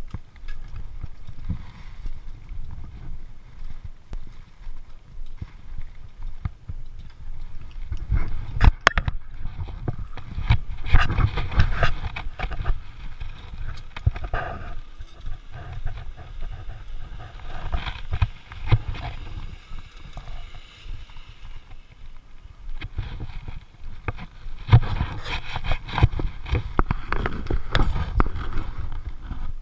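Metal clicks and knocks of carabiners and lanyard hardware being handled, mixed with footsteps on a dirt path, over a low rumble. The knocks come in irregular clusters.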